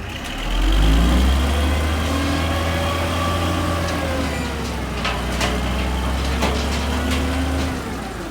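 Heavy truck's diesel engine working hard: it rises to a loud, steady run about half a second in, holds with a slight wander in pitch, and drops away near the end, with a few sharp knocks in the later part.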